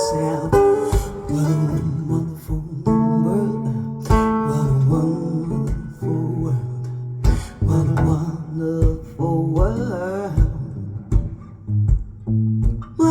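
Recorded music: an instrumental guitar passage of plucked notes, several of them bent in pitch, over low bass notes.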